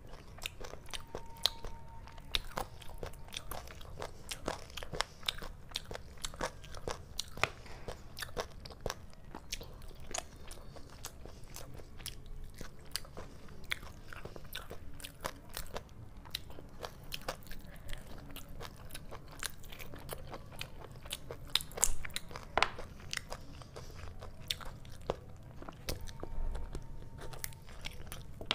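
Close-miked chewing of mouthfuls of chicken curry and rice eaten by hand, with many short wet mouth clicks throughout.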